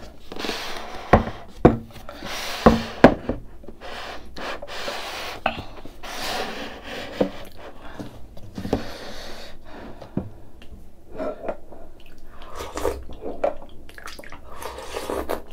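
Spoon and ice in a ceramic bowl of rice in ice water: four sharp clinks in the first three seconds, then softer stirring and scraping, with water dripping as a spoonful of rice is lifted near the end.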